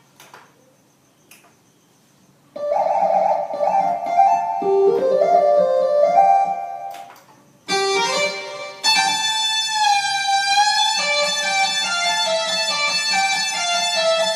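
Korg electronic keyboard playing a plucked, guitar-like lead melody with sliding, bent notes, after about two and a half seconds of near silence.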